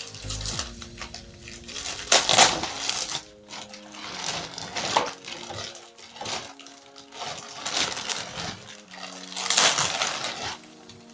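Packaging being handled: irregular crinkling and rustling bursts, loudest about two seconds in and again near the end, over quiet background music with a melody.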